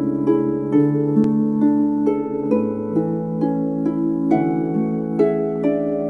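Lyre music: a slow melody of plucked notes, two or three a second, each left to ring over lower notes held beneath.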